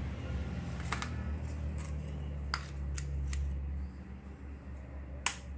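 Several sharp clicks and taps from an LED bulb and the wiring of a test board being handled, the loudest near the end, over a steady low hum.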